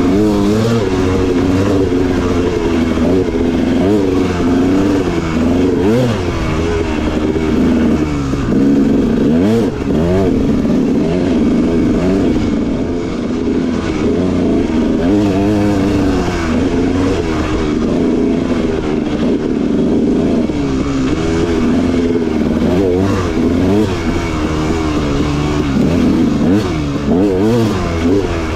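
Dirt bike engine being ridden hard, its pitch rising and falling over and over as the throttle is worked on and off.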